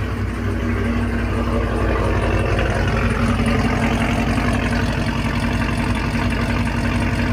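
Supercharged 6.2-litre V8 of a 2019 Chevrolet Camaro SS (Whipple 2.9L supercharger) idling steadily, heard from behind at the exhaust tips, running after its first start on the new fuel setup.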